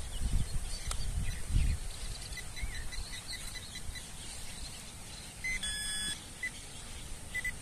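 Small birds chirping in the background, with a low rumble on the microphone in the first two seconds. About five and a half seconds in, a short steady electronic beep from the metal detector.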